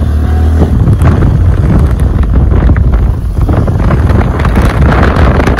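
Heavy wind buffeting the microphone on a moving motorcycle taxi, with the motorcycle's engine running underneath. A loud, steady rumble throughout.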